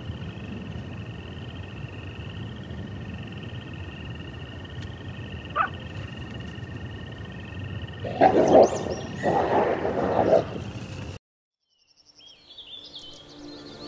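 Wild animal chorus: a steady, wavering high trill, joined about eight seconds in by two louder, lower calls. The sound cuts off abruptly about eleven seconds in, and faint chirping comes in near the end.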